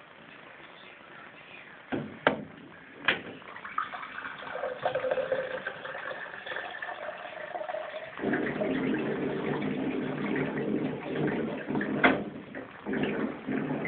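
Water running, starting a few seconds in and getting louder about eight seconds in, with a few sharp clicks.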